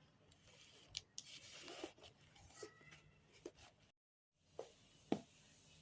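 Faint rustling and scattered clicks of packaging being handled and opened, with a brief dead-silent gap a little past the middle.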